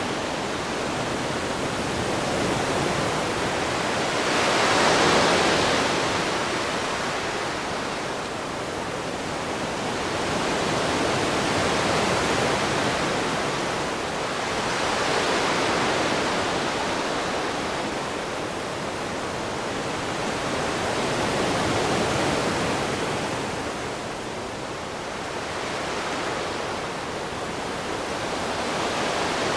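Ocean waves washing in and receding, a steady hiss of surf that swells and fades every few seconds, the strongest swell about five seconds in.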